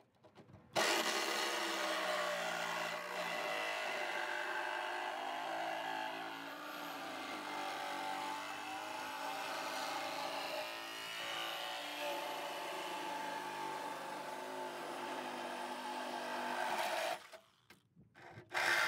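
Reciprocating saw cutting through the car's sheet-metal floor structure. It starts about a second in and runs steadily with small shifts in pitch, stops briefly near the end, then starts cutting again.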